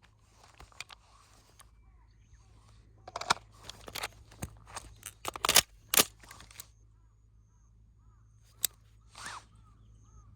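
Firearm handling during a rifle-to-pistol transition and reload: a quick run of sharp metallic clicks and clacks, the loudest in the middle, then one more sharp click and a brief swish. Faint bird chirps sound in the background.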